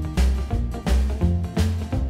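Background music with a steady drum beat, bass and pitched instruments.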